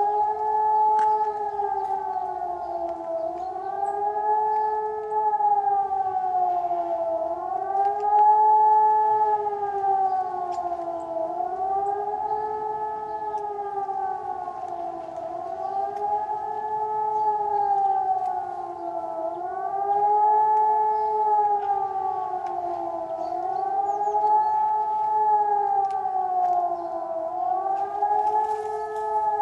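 Distant electronic civil-defence sirens sounding a test alarm: several tones together in a slow rising-and-falling wail that repeats about every four seconds.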